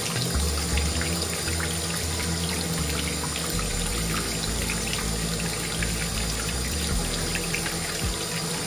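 Water pouring steadily from a waterfall-spout faucet into a ceramic vessel sink, splashing where a hand reaches into the stream. Background music with a bass line plays underneath.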